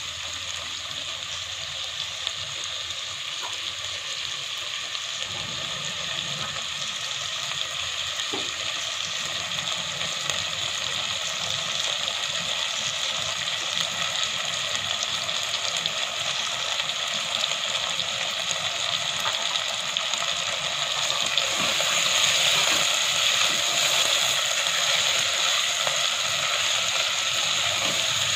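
Chicken pieces and chopped onions sizzling in hot oil in a pot: a steady frying hiss that grows gradually louder.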